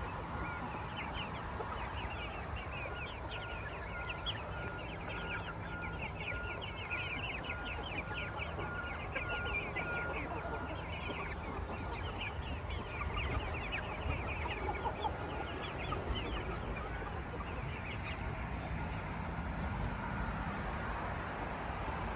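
A flock of silkie chickens clucking and chirping continuously, with many short high calls, over a steady low background rumble.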